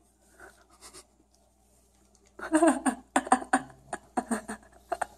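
A pug making a quick series of short, throaty grunts, about three a second, starting a couple of seconds in after a faint rustle.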